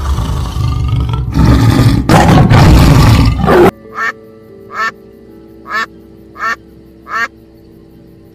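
A tiger roaring, loud and rough, cutting off abruptly after about three and a half seconds. Then five short bird calls follow, roughly one a second, over soft background music.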